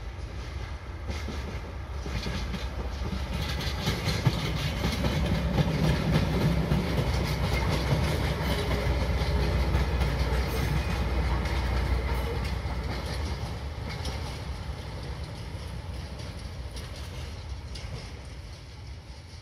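Diesel-hauled Maya track-geometry inspection train rolling past, its wheels clattering over the rail joints. The rumble builds to its loudest in the middle and fades toward the end as the train moves away.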